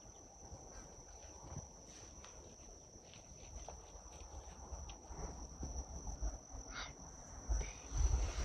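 Steady, high-pitched insect trill, typical of crickets in grassland, with a few low rumbles near the end.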